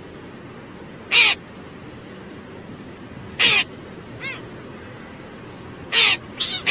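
Cat meowing in short, high calls: four clear meows spaced a second or two apart, plus one faint one in the middle.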